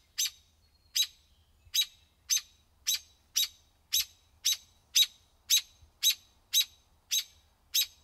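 A bird's alarm call: short, sharp chip notes repeated evenly at about two a second, a call warning of danger.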